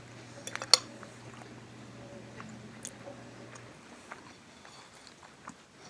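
Quiet clicks and taps of cutlery on a plate while eating, the loudest cluster just under a second in, over a low steady hum that stops about two-thirds of the way through.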